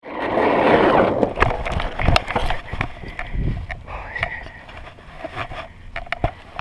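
Longboard wheels rolling on asphalt with wind rushing over the camera microphone, then a scatter of footsteps and knocks as the rider steps off the board and runs onto grass.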